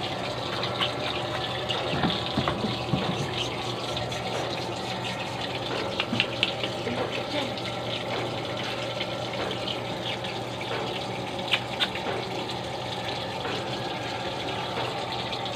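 Water running steadily, with a low steady hum underneath and a few light clicks scattered through.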